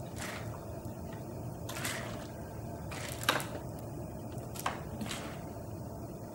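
A thin plastic water bottle handled and squeezed, crinkling in about five short crackly bursts, the sharpest about halfway through, over a low steady room hum.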